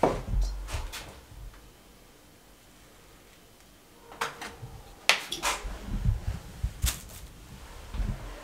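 Scattered light knocks and taps from a glass and hands working potato dough on a wooden worktable as rings are cut out and set down on a plate. There is a quiet stretch of about two seconds in the middle, and a cluster of knocks later on.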